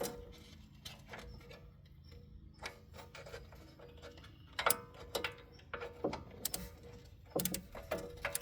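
Irregular metal clicks and knocks from a hub bolt and tools being worked against a minivan's rear hub from underneath while the bolt is being started, a sharp tap every second or so.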